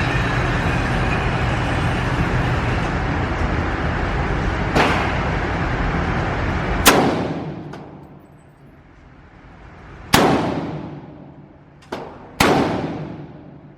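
Gunshots at a shooting range, each sharp crack trailing off in a long echo: a quieter one about five seconds in, the loudest about two seconds later, then two more near the end with a faint one just before the last. A steady rushing noise lies under the first half and drops away at the loudest shot.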